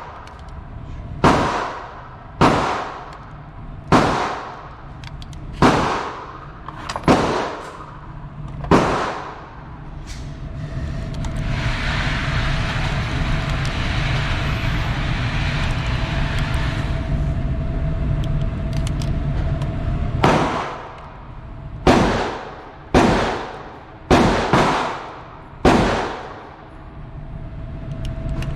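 Gunshots, fired singly about one to one and a half seconds apart, each with an echoing tail. About six come in the first nine seconds. A steady rushing noise with a faint whine then fills a ten-second pause, and the shots resume near the end, about seven more.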